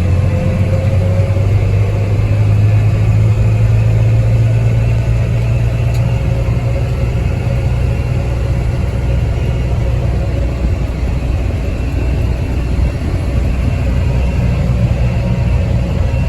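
John Deere 8310 tractor's diesel engine running steadily under way in high gear, a loud low drone that eases a little about halfway through.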